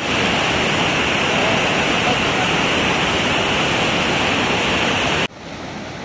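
Rushing water of a rocky waterfall cascade in flood, a loud steady hiss of muddy water pouring over rocks. It cuts off suddenly about five seconds in, leaving a much quieter background.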